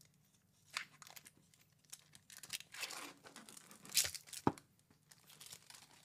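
Wrapper of a beef meat stick being torn open and peeled off by hand, crinkling in short scattered crackles, loudest about four seconds in, with one sharp click just after.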